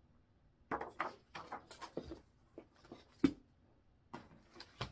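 Cross-stitch pattern charts in plastic sleeves rustling and crinkling as they are handled and sorted in a cardboard box: a string of short crinkles with one sharper tap about three seconds in.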